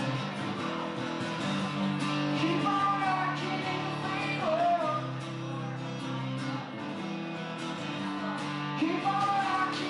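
A man singing a song while playing an acoustic guitar, live through a vocal microphone.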